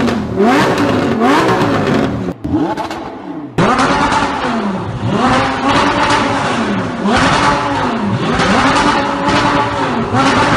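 Performance car exhaust, an Armytrix aftermarket system, revved repeatedly, the engine note climbing and falling with each blip. About three and a half seconds in it cuts to another recording, where the revs come in a steady run about a second apart.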